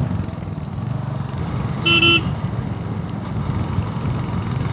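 Royal Enfield Hunter 350's single-cylinder engine running steadily on the move. One short vehicle horn toot sounds about two seconds in.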